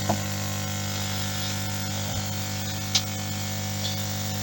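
Air compressor of a Lukey 852D+ hot-air soldering station running with a steady low buzzing hum, the sound of its pistons, while it sits in its open case on soft packaging foam that damps its vibration. Two brief light clicks, one just after the start and one about three seconds in.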